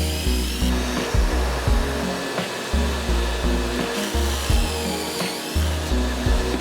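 Background music with a steady beat and a stepping bass line, over a steady whirring noise like a small power-tool motor.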